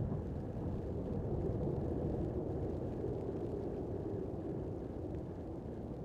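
Wind buffeting the microphone in a snowy whiteout: a steady low rumble with no distinct events.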